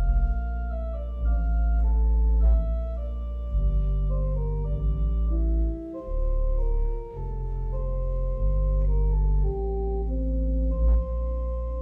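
Organ playing sustained chords over a deep held bass line, the notes changing every second or so, with a brief dip in the bass about six seconds in.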